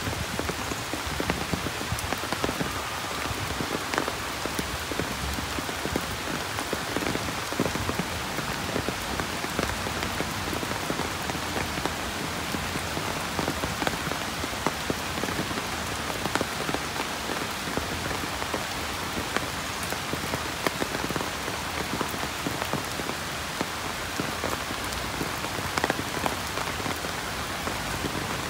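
Steady heavy rainfall, an even hiss of rain dotted with frequent sharp ticks of single drops striking hard surfaces.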